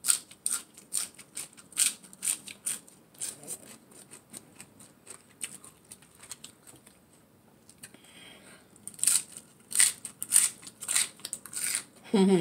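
Close-miked eating of crunchy food: a run of sharp crunching and wet mouth clicks, two or three a second, sparser in the middle and busiest near the end.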